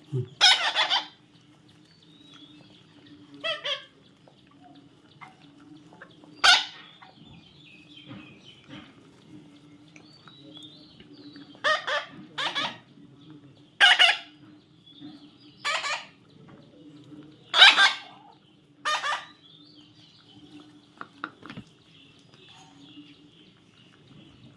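A parrot giving short, harsh squawks, about nine of them at irregular intervals, with a faint steady hum underneath.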